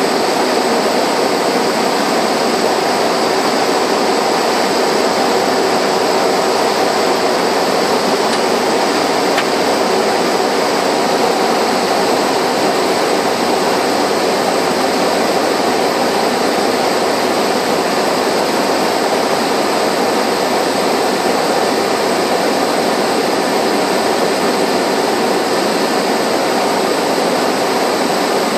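Steady drone of a Cessna Caravan's single Pratt & Whitney PT6A turboprop engine and propeller, heard inside the cockpit on approach to landing. It holds at a constant level, with no change in pitch or power.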